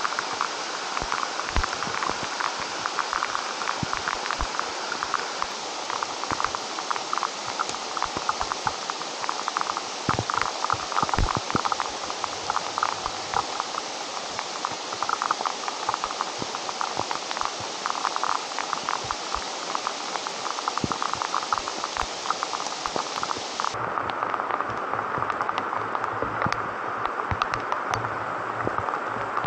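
Heavy rain falling in a leafy forest: a steady hiss of rain with a dense patter of drops on leaves and close drops ticking. Near the end the sound turns duller.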